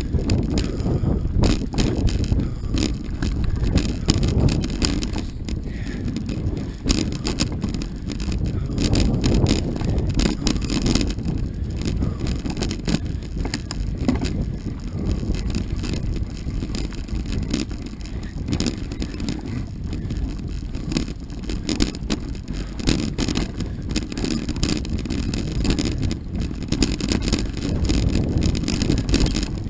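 Mountain bike ridden along a dirt singletrack: a steady rumble of the knobby tyres on the trail, with frequent clicks and rattles from the bike over the bumps.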